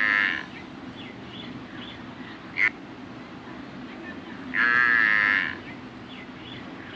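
Domestic water buffalo lowing: two long calls, one at the start and one about four and a half seconds in. A steady background hiss runs underneath, with a brief sharp high sound between the calls.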